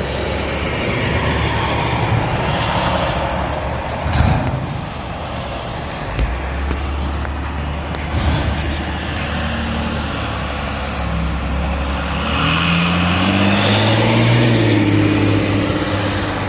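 City street traffic passing, a steady rumble of cars and trucks, with a knock about four seconds in. Near the end a heavier engine note rises and falls as a large vehicle goes by.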